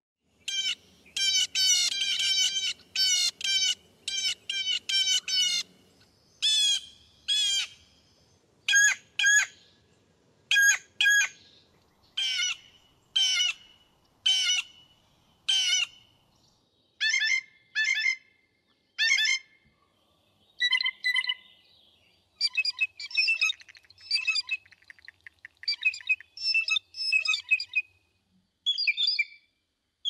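Recorded blue jays calling: a long run of angry-sounding 'jay' calls, in quick clusters at first and then in pairs about once a second. Near the end come faster, more varied notes, the blue jay song that sounds like a car alarm.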